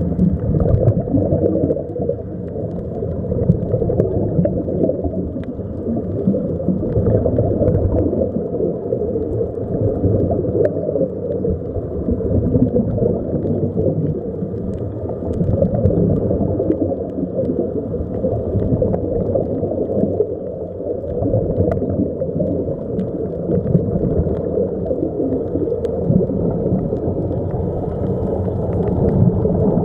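Muffled underwater noise picked up by a camera in a waterproof housing: a dense, steady low rumble with gurgling from air bubbles streaming out of the sea-walker helmets, and a few faint ticks.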